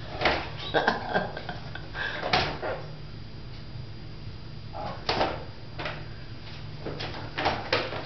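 Brown paper bag crinkling and crackling in irregular bursts as a hawk-headed parrot moves about inside it, with a quieter pause in the middle.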